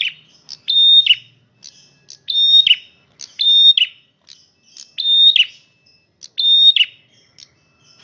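Male prenjak merah calling loudly over and over. Each call is a short held high note that drops sharply at the end, coming about once every second and a half, with softer short notes in between.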